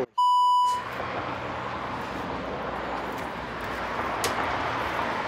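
A steady electronic censor bleep, a pure beep tone lasting about two-thirds of a second, cuts in right after a spoken "Oh," to cover a word. After it comes a steady outdoor noise hiss, with a faint click about four seconds in.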